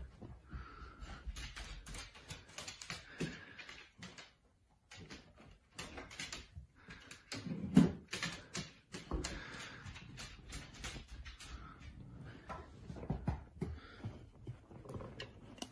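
Quiet scattered clicks and knocks of a dog opening a refrigerator door and taking out a beer, with a louder knock about eight seconds in.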